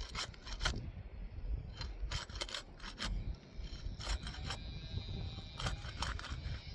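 Asphalt shingles being unsealed: the tar seal strip scraped and cracked loose in short strokes that come in several clusters, over a low wind rumble on the microphone.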